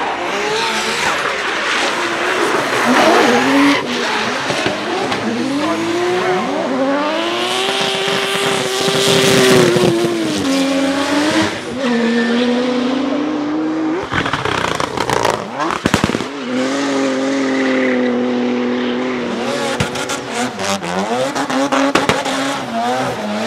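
Drift car engine revving hard up and down as it slides, with tyres squealing over it. A few sharp pops stand out about two-thirds of the way through and again near the end.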